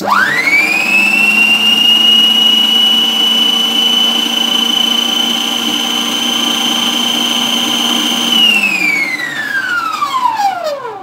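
Stand mixer motor starting with a quick rising whine and running steadily as its beater stirs dry flour in the bowl. About eight seconds in it is switched off, and the whine falls away as the motor spins down.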